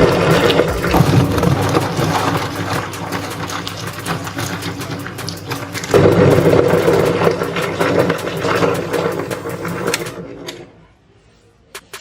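Meat grinder running with its motor humming steadily while it crushes oysters, shells cracking and crunching throughout. The grinding surges again about halfway through and cuts off near the end, leaving a couple of small clicks.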